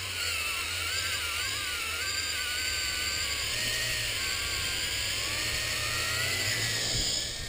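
Wltoys V666 quadcopter's motors and propellers whirring close by, held in the hand: several whines at slightly different pitches that waver up and down together. The sound falls off sharply near the end.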